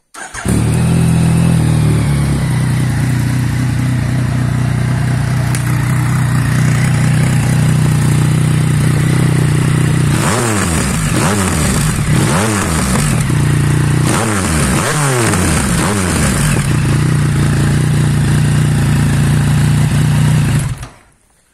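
Yamaha Niken's 847 cc inline-three engine, breathing through an Arrow slip-on exhaust with its dB killer fitted, starts up and idles. Midway it is given a series of quick throttle blips, then settles back to idle and is switched off near the end.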